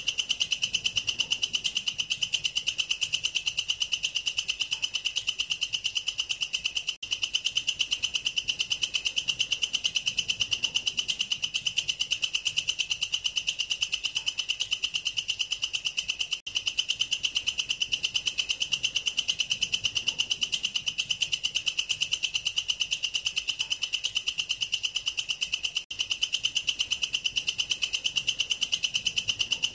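A katydid (belalang kerek, a long-horned grasshopper) stridulating its loud, shrill calling song as a fast, even train of pulses. It breaks off for an instant about every nine seconds.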